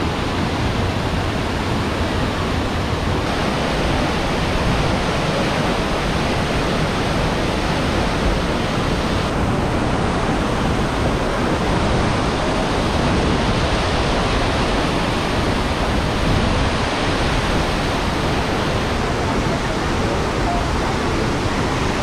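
Steady, loud rush of a tall waterfall: an unbroken wash of falling water.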